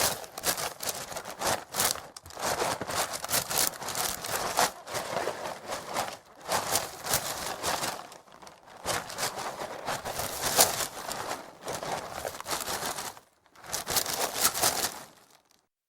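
A full cardboard cereal box being moved and shaken by hand, its dry flakes shifting and the plastic inner bag crinkling, in irregular bursts with short pauses.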